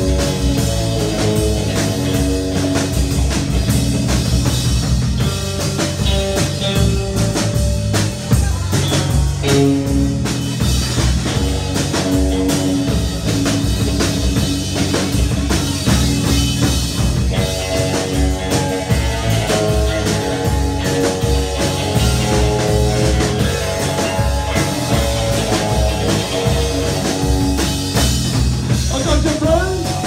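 Live rock band playing loud: electric guitars over a steady drum kit beat.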